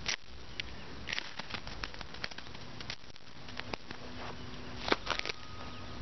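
A ferrocerium rod scraped once, sharply, to throw sparks onto a ball of cattail fluff and pine gum, followed by scattered crackles and pops as the pine-gum tinder catches and burns, with a sharp cluster of pops about five seconds in.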